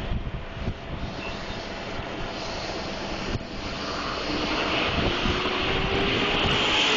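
Jet airliner engine noise on an airport apron, a hissing rush that grows louder through the second half with a steady whine coming in near the middle. Wind buffets the microphone in the first second or so.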